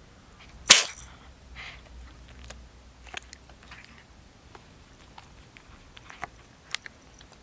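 A cat sneezing: one sharp, loud sneeze about a second in, then softer snuffles and small clicks, with a couple more short, sharp sneezes near the end. The owner wonders whether the sneezing came from chewing a candy wrapper.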